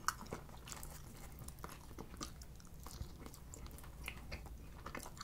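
Faint soft crackles and small ticks as slices of thick gorgonzola pizza are pulled apart by hand.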